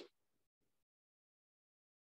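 Near silence: the call audio is completely blank after the very tail of a spoken word at the start.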